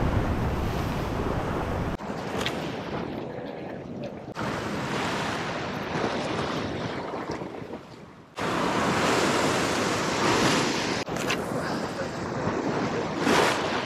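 Ocean waves washing against a sea-rock ledge, with wind buffeting the microphone. The level jumps abruptly several times.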